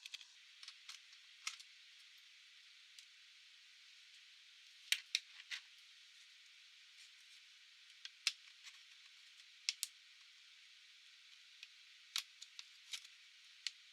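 Faint, scattered sharp clicks and taps of small hard plastic and metal parts being handled while working on a Panasonic Toughbook laptop, over a steady hiss. The clicks come a second or more apart, with a small group of them about five seconds in.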